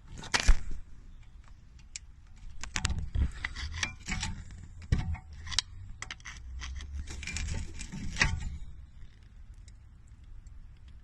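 Metal tools clicking and scraping against a front brake caliper as the piston is pushed back into its bore, in three bursts of handling with short pauses between.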